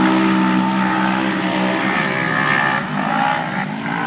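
Off-road race vehicle's engine running hard, holding steady revs, then dropping and climbing again twice in the second half as the driver lifts and gets back on the throttle.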